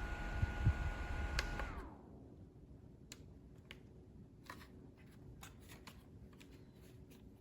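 Small rechargeable desk fan running with a steady whir and motor whine. About a second and a half in there is a click, and the whine falls in pitch and dies away as the fan is switched off and spins down. After that come a few faint clicks and taps.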